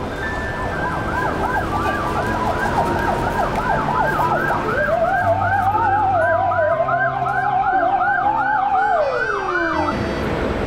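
Ambulance siren in a fast yelp, a quick rise and fall about three times a second, joined about halfway through by a lower, slower wavering wail. Both glide down in pitch and cut off near the end.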